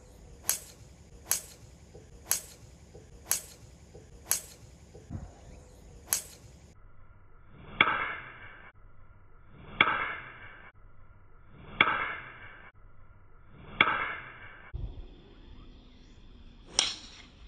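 Golf driver striking a teed ball, over and over: six sharp cracks about a second apart, then four with longer trailing tails about two seconds apart, and one more near the end.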